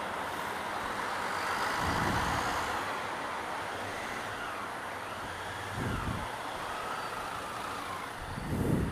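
Steady traffic noise in a tunnel from an articulated city bus running alongside and the motorcycle's own engine, with a wavering whine and three short low thumps.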